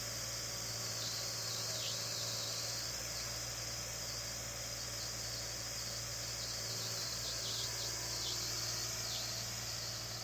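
Steady, high-pitched chorus of buzzing insects, with a low steady hum underneath.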